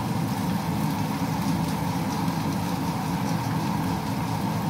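Steady mechanical hum of a kitchen range-hood extractor fan, with fish fillets frying in oil in a pan.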